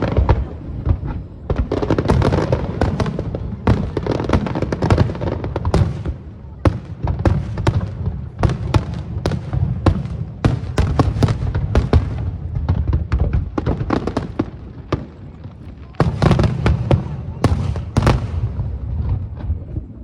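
Aerial fireworks show: shells bursting overhead in quick succession, a dense run of sharp bangs, with a busier volley about three-quarters of the way through.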